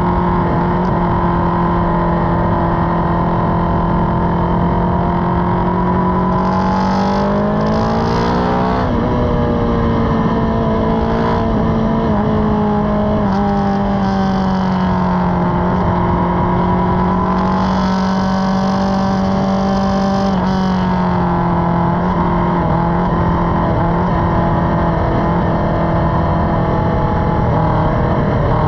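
Motorcycle engine running under way at cruising speed, heard from the rider's own bike. The engine note rises as it accelerates about seven seconds in, then drops back about twenty seconds in.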